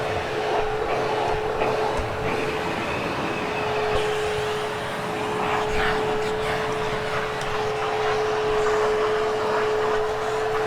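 Hoover HushTone vacuum cleaner running steadily with a constant whine, vacuuming a carpet thick with dog hair.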